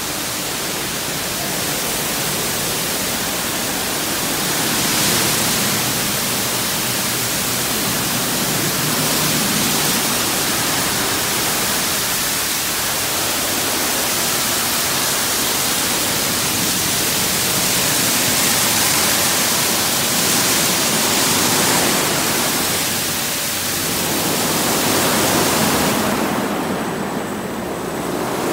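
Washworld Profile MAX soft-touch car wash at work: spinning cloth brushes and water spray washing a car, a steady rush of spray that swells every few seconds. The high hiss eases briefly near the end.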